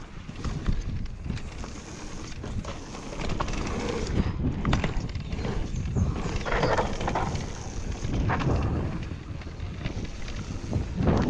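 Wind buffeting the microphone over the rumble of a mountain bike's tyres on a dirt trail, with irregular clicks and rattles from the bike as it rides over bumps.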